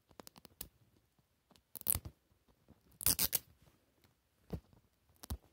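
Fingers picking at and tearing the plastic wrap and sticker seal of a Mini Brands capsule ball: a few short tearing and scraping noises, the loudest about two and three seconds in.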